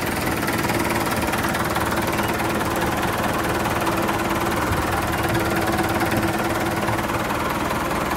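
John Deere 5510 tractor's four-cylinder turbo diesel engine running steadily.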